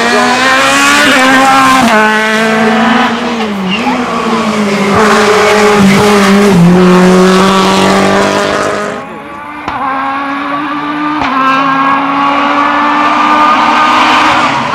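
Race car engines at hard throttle on a hill climb, the pitch rising through each gear and dropping sharply at the gear changes. The sound dips briefly about nine seconds in and then switches to another car's engine.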